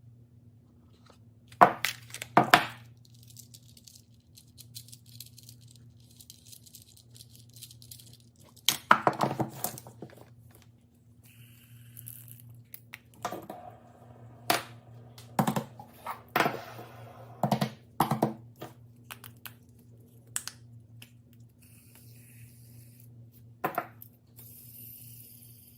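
Small objects being handled: a scattered series of sharp taps and clicks, about a dozen, with some crinkling, over a steady low hum.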